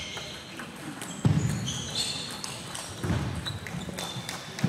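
Table tennis point being played: sharp echoing knocks of the ball off bats and table, the loudest about a second in, with short high squeaks of shoes on the sports hall floor about two seconds in.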